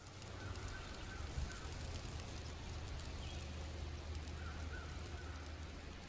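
Geese honking in two short bouts about four seconds apart, over a steady low rumble.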